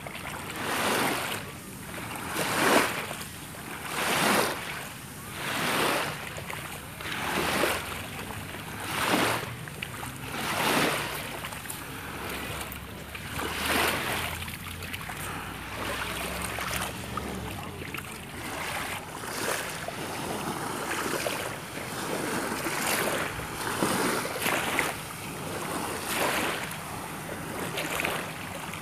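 Small waves washing in, in repeated surges about every second and a half at first, then as a more even wash, with some wind on the microphone.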